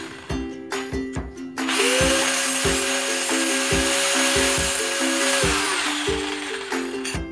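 Electric angle grinder spinning up about two seconds in, grinding a small metal strip for a few seconds, then winding down. Background music with a steady beat plays throughout.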